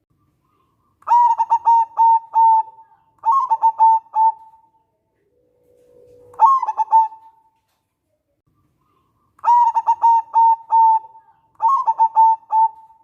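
Zebra dove (perkutut) cooing in five phrases of rapid staccato coos. One phrase, about six seconds in, opens with a low drawn-out note.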